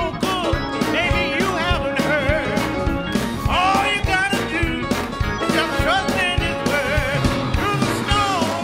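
A woman sings a gospel solo into a handheld microphone, her voice sliding and wavering through long runs, backed by a live band with a steady drum beat.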